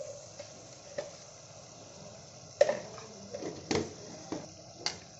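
Onion-tomato spice masala sizzling and bubbling in oil in an aluminium pot as it is fried down until the oil separates, with several sharp clicks in the second half.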